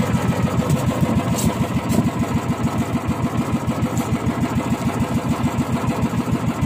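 Boat engine idling, running with a steady, rapid, even putter.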